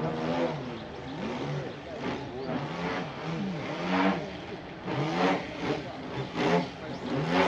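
Fuel-burning engine of a radio-controlled aerobatic model plane in flight, its pitch rising and falling again and again as the throttle changes through the manoeuvres, with surges every second or so.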